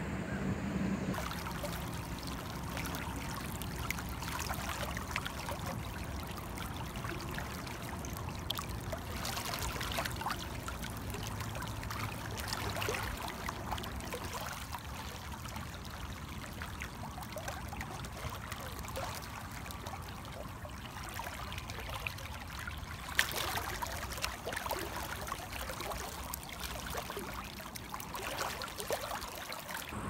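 River water running over a shallow riffle close by, a steady rushing and babbling with many small splashes and one sharper splash later on.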